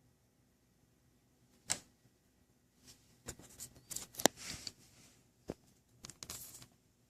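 Scattered clicks and rustling, like small objects being handled: one sharp click about two seconds in, a busy run of clicks and rustles from about three to five seconds in, and a last short run near the end.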